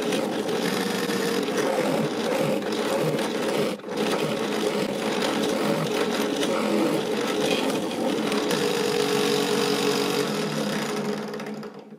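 Drill press running and boring holes into a pine plank, a steady motor hum under the noise of the bit cutting wood. There is a brief break about four seconds in, and the sound dies away near the end.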